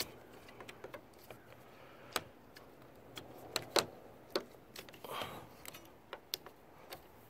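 Scattered sharp plastic clicks and clacks as an old wiper blade's plastic clip is twisted and forced on the metal wiper arm, with the loudest pair of clicks near the middle and a short scrape just after.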